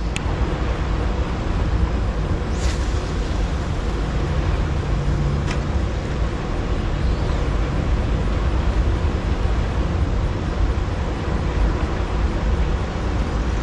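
Steady rumbling rush of water and machinery from a hydroelectric dam's turbine outflow, heavy in the low end, with a couple of faint clicks a few seconds in.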